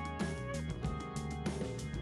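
Background music: instrumental track with guitar and a steady drum beat.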